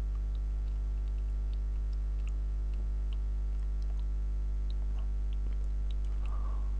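Steady low electrical hum on the recording, with faint, irregular short clicks scattered over it, most likely computer-mouse clicks as an image is positioned and selected.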